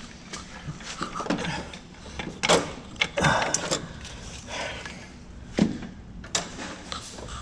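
Scattered metallic knocks and clanks of tools and parts being handled, with a few sharp hits, the loudest about two and a half and five and a half seconds in.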